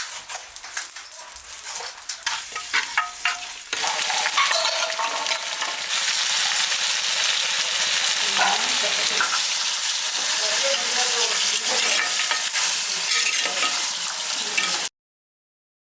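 Light clicking at first, then a dense crackling, sizzling hiss that starts abruptly, grows louder a couple of seconds later, and cuts off suddenly near the end.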